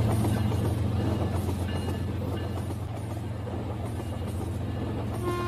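Rail King toy train running on plastic track: a steady motor hum with a fine rattle of wheels, slowly growing quieter. A horn tone begins right at the end.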